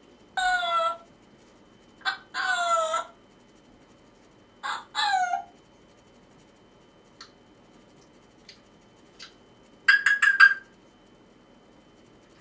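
African grey parrot calling loudly: one call, then two pairs of a short note followed by a longer call that falls in pitch at the end. A few faint clicks follow, then a quick run of about five short, pitched notes near the end.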